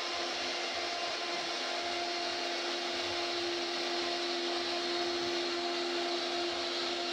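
CNC router spindle running with a steady whine while its bit cuts a relief carving into a wooden panel, with a constant hiss of wood being cut.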